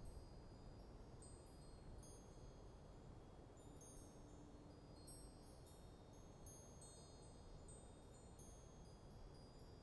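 Wind chimes ringing faintly in a light breeze, many high notes struck at irregular intervals and left to ring, over a steady low rumble of wind.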